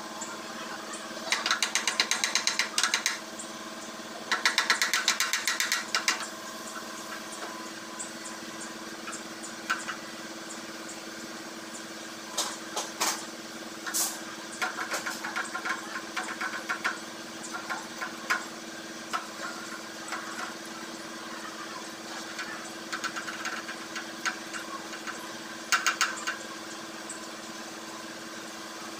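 A small hammer tapping quickly on a radiator's metal top tank, several light blows a second, in two runs of about two seconds each near the start. After that come scattered single metallic taps and clinks as hand tools work at the tank, over a steady low hum.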